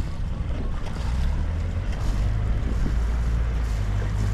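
Small passenger ferry's inboard engine running with a steady low rumble as the boat comes in to the landing steps, growing louder about a second in.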